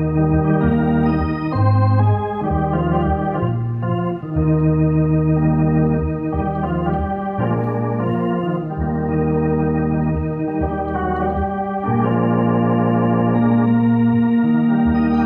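Electronic organ playing slow sustained chords over a held bass line, the notes changing about once a second, settling on a long held chord in the last few seconds.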